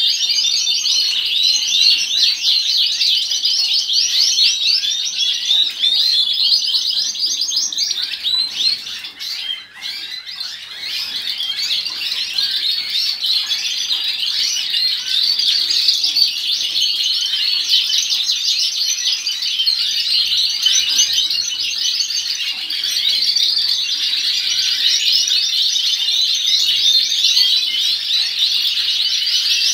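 Domestic canaries singing together in a chorus of fast, high trills and chirps, several birds at once. It goes briefly quieter about a third of the way in.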